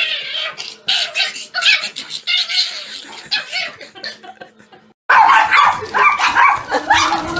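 Small dog yipping in short bursts, then from about five seconds in a louder, quicker run of barking and yapping.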